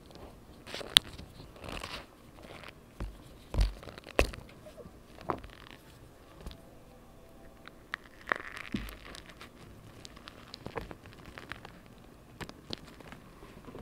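Dyed gym chalk dusted with cornstarch being squeezed and crumbled between the fingers: irregular crackling crunches, with sharper snaps about a second in and around four and eight seconds in.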